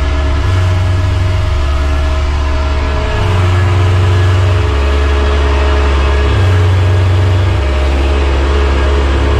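John Deere tractor engine running steadily under load, heard from inside the cab while it pulls a Joskin slurry tanker. A deep drone underneath shifts between two pitches in a slow cycle, about every three seconds.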